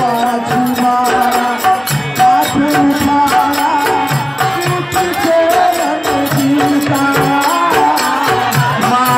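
Bhajan-kirtan devotional folk music: sung melody with long held notes over a steady percussion beat.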